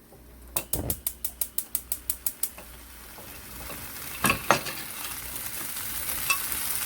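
A gas stove's igniter clicking rapidly, about a dozen clicks at roughly six a second, then food in a frying pan starting to sizzle, the sizzle growing louder, with two knocks of a utensil against the pan about four seconds in.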